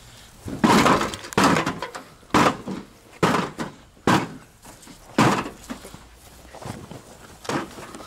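A microwave's dented sheet-metal casing being beaten by hand and foot: six hard, sudden thuds about a second apart, then two lighter ones near the end.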